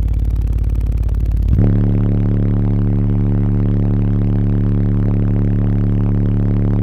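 Avatar SVL1847 subwoofers in an 8th-order bandpass enclosure playing a very low bass tone at high volume, strong enough to blow hair around. About a second and a half in, the bass shifts from a pulsing throb to a steady hum with a stack of overtones.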